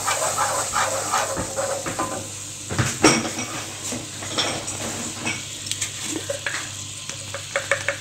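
Wooden spoon stirring and scraping honey and mustard in a nonstick frying pan over the heat: a run of soft scraping strokes with small clicks, and a sharper knock about three seconds in.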